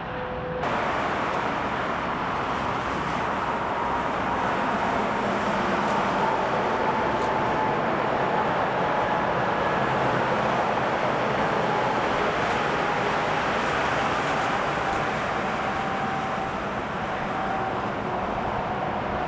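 Boeing 757-200 freighter's jet engines running steadily during a ground engine test. A faint whine slowly falls in pitch over the steady noise.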